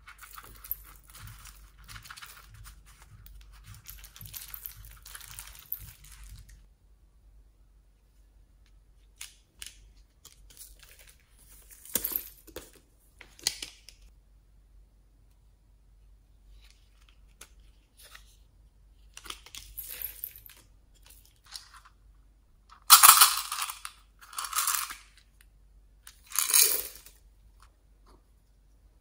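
Small beads and sprinkles pouring out of miniature toy sneakers into a dish of slime, a fine pattering rattle for about six seconds. Scattered crackles follow, with three louder crinkly rustles near the end.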